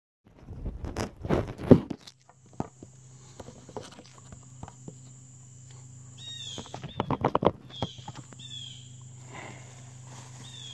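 Rustling knocks and footsteps in brush as the camera is carried and set down, loudest about a second and a half in. Then a steady high insect drone, with a few short falling bird chirps and another burst of crunching footsteps in leaf litter around seven seconds in.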